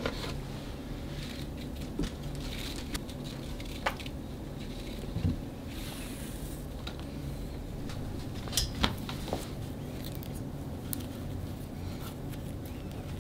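Hands handling a spool of jute twine on a wooden desk: scattered light taps, clicks and rustles over a steady low background noise.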